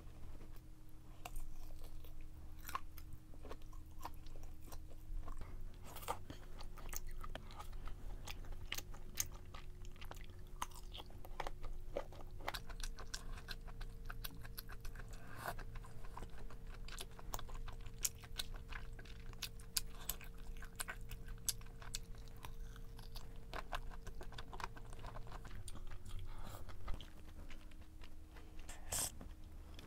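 A person biting and chewing crunchy food, with many sharp crunches close to the microphone.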